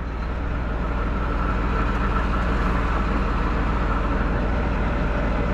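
John Deere 8300 tractor's six-cylinder diesel engine running steadily under field work, swelling slightly over the first second and then holding an even drone.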